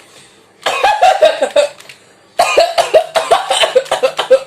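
A person coughing on purpose in two rapid bouts of short, voiced coughs. The first bout starts about a second in and lasts about a second; the second lasts about two seconds.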